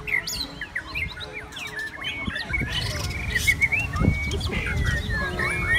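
Several caged white-rumped shamas singing over one another: quick whistled phrases of rising and falling notes mixed with short chattering calls.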